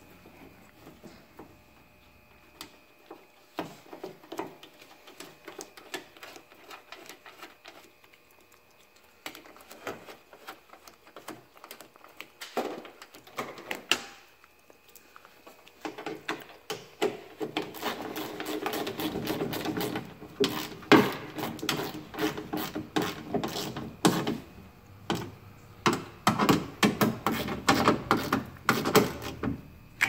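Hand ratchet clicking in quick runs as the door latch screws are driven in, the runs getting denser and louder in the second half. Before that, lighter taps and clinks of metal parts being handled.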